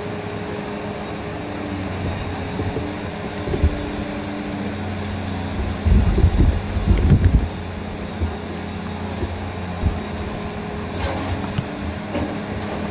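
Diesel engine of a high-reach demolition excavator running steadily, with a burst of loud crunching and crashing from concrete and brick breaking and falling for about a second and a half near the middle, and a few single knocks before and after.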